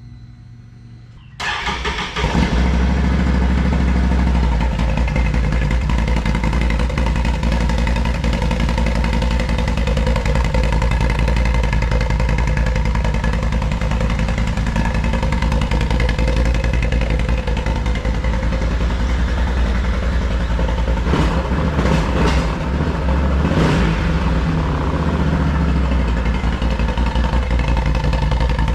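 2022 Can-Am Outlander 1000 XMR's V-twin engine breathing through an RJWC single slip-on exhaust: it starts about a second and a half in and then runs loud and steady, with a few short throttle blips about three-quarters of the way through.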